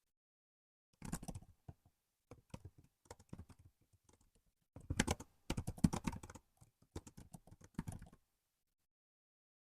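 Typing on a laptop keyboard: quick runs of soft key clicks with short pauses between them, stopping about eight seconds in.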